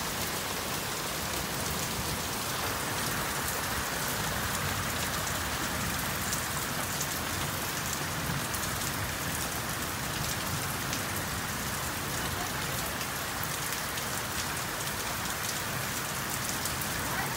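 Heavy rain falling steadily, pouring in streams off the edge of a corrugated roof: an even, unbroken hiss of downpour.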